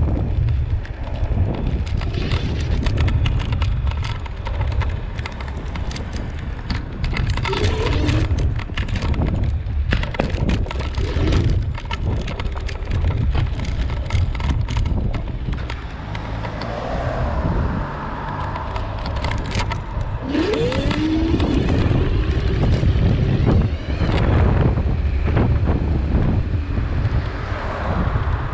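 Dualtron Raptor 2 electric scooter riding over asphalt, heard from beside its front wheel: a steady deep rumble of wind and tyre on the road, with frequent knocks and rattles as the wheel goes over rough patches.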